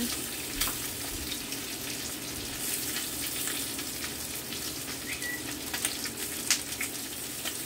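Chicken pieces sizzling steadily in a frying pan on a gas burner, with a few light clinks of a metal ladle against the stock pot as soup is served into a bowl.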